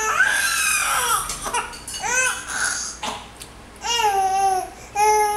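Baby babbling: about four short, high-pitched vocal sounds whose pitch bends up and down, with short pauses between them.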